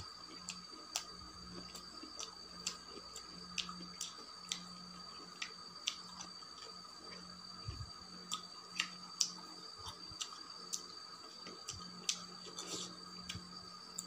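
Close-miked eating: wet chewing and mouth clicks as cucumber and rice are chewed, coming at irregular moments. A faint steady hum and high whine sit underneath.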